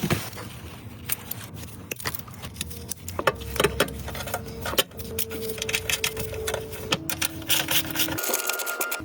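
Irregular clicking and clattering of hand tools and metal parts being worked on a car, with a faint steady hum in the background that shifts in pitch a few times.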